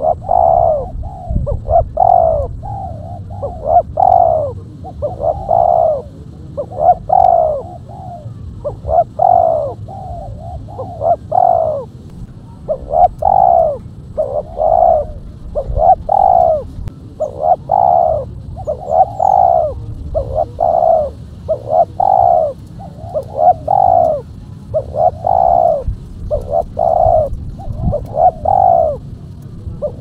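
Spotted dove cooing: a long run of repeated rounded coo notes, strung together in phrases with short pauses between them.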